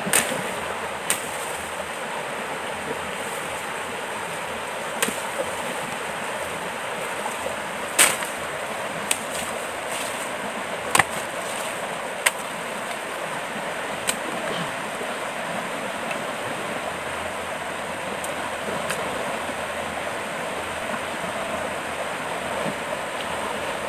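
A machete cutting and trimming a thin bamboo stem: about eight sharp, irregularly spaced strokes in the first fifteen seconds, over the steady rush of a stream.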